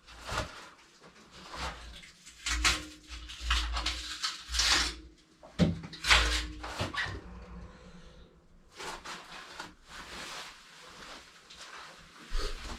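Glass sliding shower door panels rolling back and forth along their metal top rail, a series of rumbling, hissing strokes about half a second to a second each, as the newly hung doors are slid to test the track.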